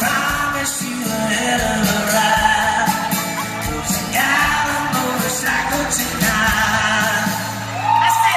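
Live acoustic country song: a man singing over two strummed acoustic guitars. Whoops from the audience start near the end.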